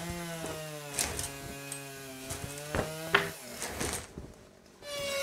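A power tool's motor running at a steady pitch for about three seconds after a brief rise, then dying away, with a few sharp knocks of wood; the loudest knock comes about three seconds in.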